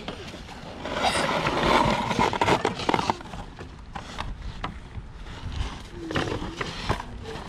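Children's rough growling play noises over plastic toy trucks scraping and knocking in snow. It is loudest for the first few seconds, then settles to scattered knocks, with a brief vocal sound about six seconds in.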